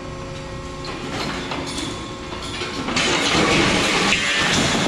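Husqvarna DXR310 demolition robot's hydraulics run steadily while a section of concrete slab cracks and gives way. About three seconds in it crashes down onto the rubble pile in a loud, drawn-out rumble of breaking concrete.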